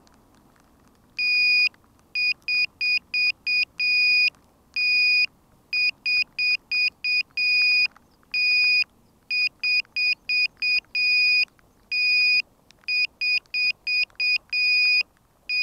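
Piezo buzzer on a downed quadcopter beeping: a high-pitched electronic tone in an irregular run of long and short beeps, several a second, starting about a second in.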